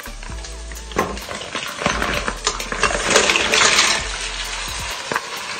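Mussels in their shells tipped from a plastic tub into hot oil in a steel pot: a sharp knock about a second in, then a loud sizzle with shells clattering that swells over the next couple of seconds and settles into a steady frying sizzle.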